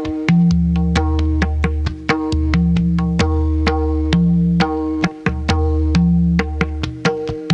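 Instrumental theme music: a steady rhythmic pattern of short, sharp pitched notes over long held low bass notes.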